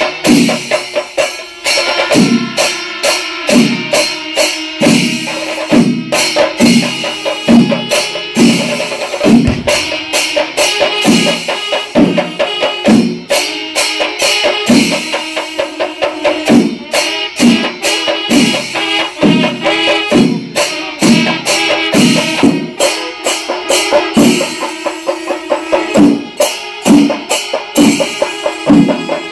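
Percussion music: regular drum strokes about one or two a second, with metallic jingling over them and a steady held tone.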